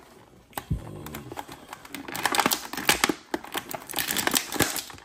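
Thin clear plastic packaging, the bag and blister tray around an action figure, crinkling and crackling as it is handled. It starts quiet with a soft knock about half a second in, and the crinkling turns loud and busy from about two seconds in.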